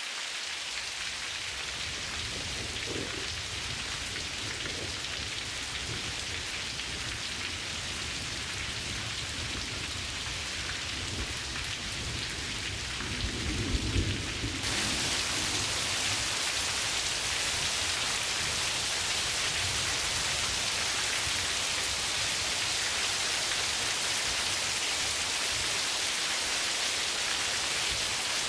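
Steady heavy rain falling, with a low rumble of thunder about halfway through; just after, the rain turns louder and more hissing.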